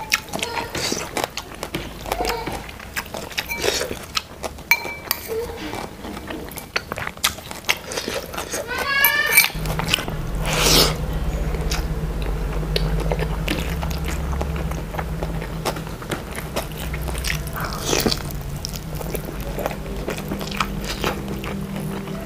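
Close-miked eating sounds: chewing, lip smacks and small wet clicks of someone eating rice, fried fish and a corn fritter by hand. A brief wavering pitched sound comes just before a low steady hum starts about nine seconds in and keeps going.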